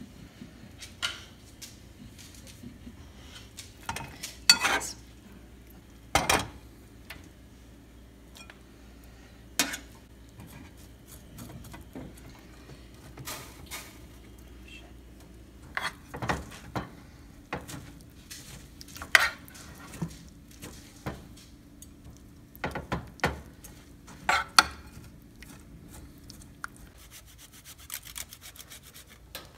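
Fork and spoon clinking and scraping against a baking pan and bowls as spaghetti squash strands and shrimp Alfredo are dished up, in scattered separate clinks and knocks. Near the end comes a fast rasping of a block of Parmesan on a handheld grater.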